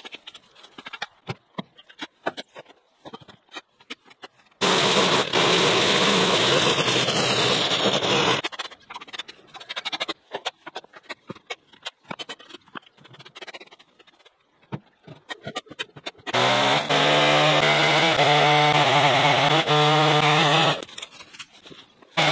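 A shovel and rake scraping and clunking on dirt and gravel. This is broken twice by a much louder droning sound with a low hum that starts and stops abruptly.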